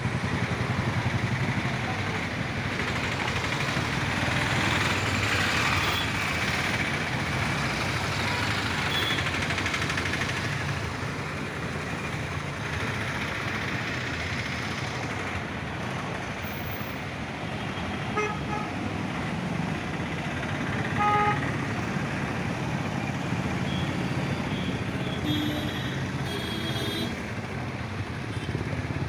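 Road roller's diesel engine running steadily with a low hum, while vehicle horns toot briefly a few times in the second half.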